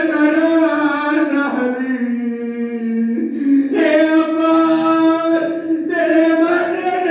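A single man's voice chanting a mournful lament in long drawn-out notes, in the manner of the sung masaib that closes a majlis. The pitch sinks lower about two seconds in and rises again near four seconds.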